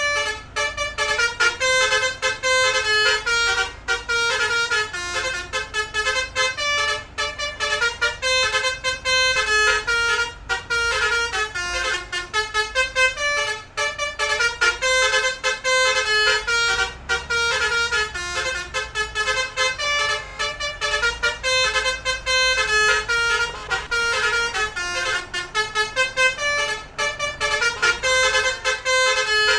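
A basuri musical vehicle horn (the 'om telolet' kind) plays a fast tune of short notes, one after another, with only brief breaks.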